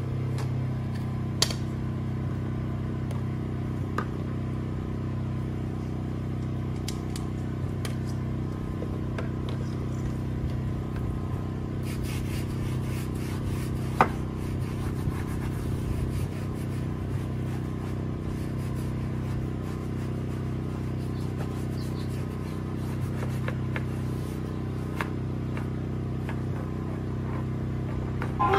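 Steady low mechanical hum, like a motor running at constant speed, with a few sharp clicks and light handling noise over it.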